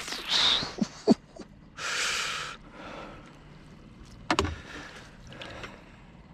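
Knocks and clicks of an angler handling gear in a small boat, with a short rushing burst about two seconds in and a sharper knock about four seconds in.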